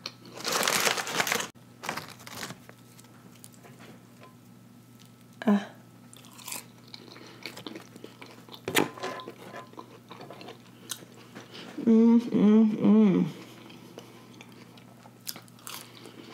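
Close-up eating sounds: crunchy chewing of fried breaded catfish and fries, loudest in a burst about half a second in, then quieter chewing with a few sharp mouth clicks. Near the end a short hummed 'mmm' of enjoyment, in three quick pulses.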